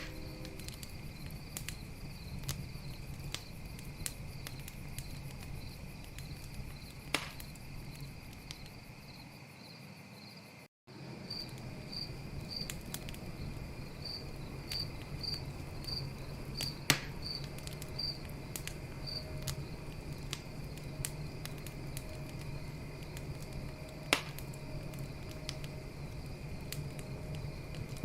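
Campfire crackling with scattered sharp pops, three of them louder, over a steady chorus of night crickets trilling and chirping. The sound cuts out completely for an instant about eleven seconds in.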